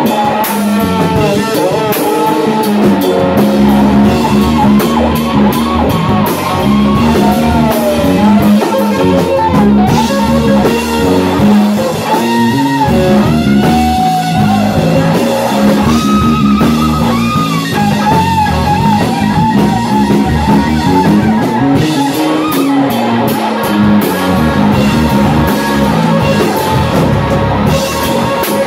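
Live rock band played loud: an electric guitar solos with long bent notes and wide vibrato over a drum kit with steady cymbals.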